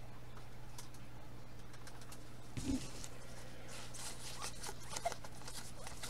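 Trading cards handled by gloved hands: a light knock about two and a half seconds in, then soft scattered rustles and clicks of cards sliding and being shuffled, over a faint steady hum.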